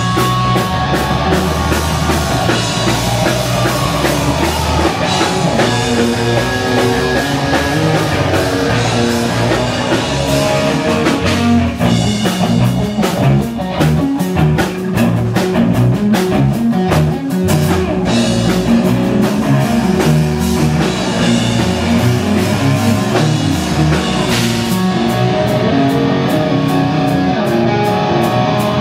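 Live rock band playing loud through amplifiers, with electric guitar, bass guitar and drum kit. The drumming grows busier partway through.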